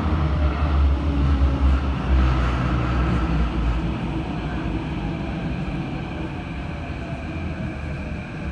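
A CT251 metro train running on its wheels: a heavy low rumble and vibration that the uploader blames on flat wheels. The rumble eases over the last few seconds as the train slows into a station, with a faint falling whine from the traction motors.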